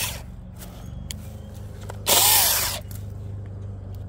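Electric saw given a short trigger pull: the motor winds down at the start, then about 2 s in spins up, runs for under a second and winds down again. A steady low hum runs underneath.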